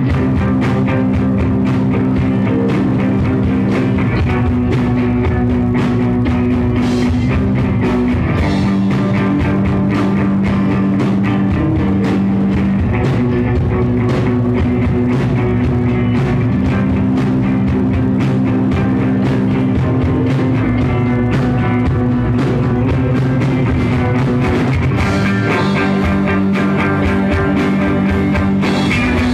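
Live rock band playing: electric guitars, bass guitar and drum kit, loud and steady, with held chords running under the drumming.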